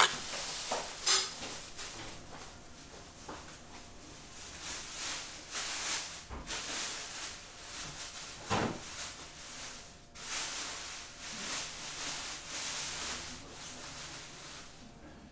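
A metal spoon clinking and scraping against ceramic serving plates, with two sharp clinks near the start. Later there is a soft shifting hiss of handling noise with a few light knocks.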